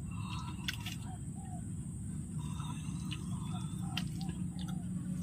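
Outdoor ambience: a bird giving short soft repeated calls over a steady high insect drone and a low steady rushing noise, with a few sharp clicks.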